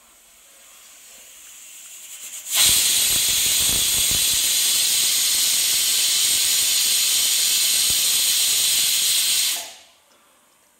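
Stainless steel pressure cooker letting off its whistle as its weight lifts at full pressure. The steam hiss swells over the first couple of seconds, then comes a loud, steady hissing whistle for about seven seconds, which cuts off sharply a second before the end.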